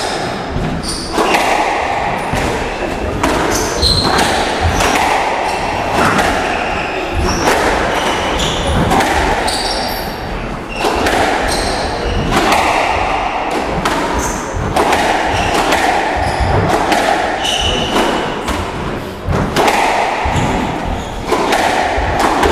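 Squash rally: the ball is struck by rackets and hits the court walls in sharp thuds about once a second, with short high squeaks from the players' shoes on the court floor in between.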